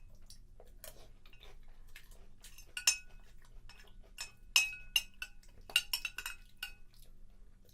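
A metal spoon clinking against a cereal bowl, a string of sharp ringing taps that come irregularly while cereal is scooped, loudest around the middle.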